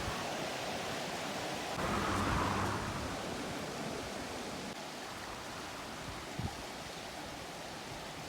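Steady outdoor rushing noise that swells for about a second, a couple of seconds in, with one light knock a little after six seconds in.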